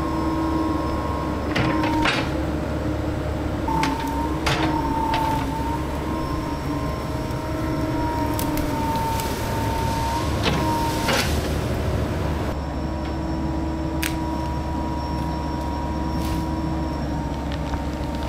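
Cat 308D mini excavator working: the diesel engine runs steadily under a whine from the hydraulics that wavers slightly in pitch. Sharp knocks and cracks come at irregular intervals, several times over.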